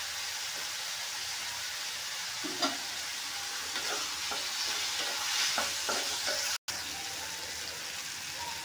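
Steady sizzle of cauliflower and tomatoes frying in oil, with a wooden spatula scraping and stirring the tomatoes in an aluminium kadai in a series of short strokes through the middle. The sound cuts out for an instant about two-thirds of the way through.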